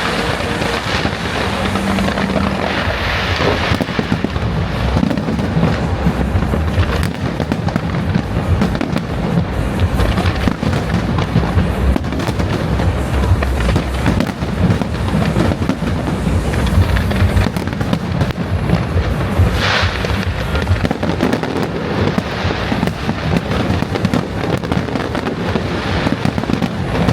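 Fireworks going off in a dense, continuous barrage: overlapping bangs and crackling with no pauses.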